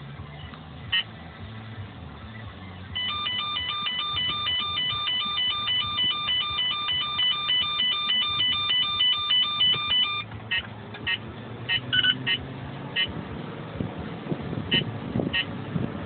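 Valentine One radar detector giving a rapid, evenly repeating beeping laser alert, about four beeps a second for roughly seven seconds. It is a false alert set off by the third brake light of the Trailblazer ahead. Scattered short single beeps follow.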